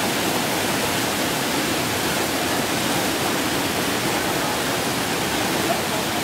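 Muddy floodwater rushing over a road in a steady torrent.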